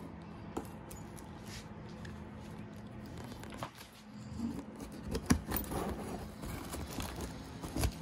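Packing tape on a cardboard box being slit and scraped open with a small hand tool: scattered scratching and rustling with a few sharp clicks, busiest about five to six seconds in.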